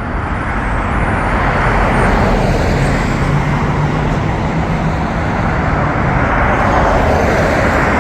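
Road traffic noise: a steady wash of passing cars that swells slightly over the first couple of seconds and then holds, with a faint low engine hum in the middle.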